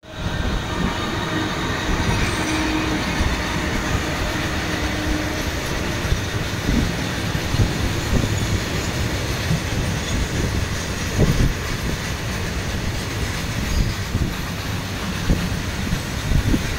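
Steady rumble and rattle of train wheels on rails, heard from aboard a moving train as a freight train of open wagons runs alongside on the next track, with a few low knocks.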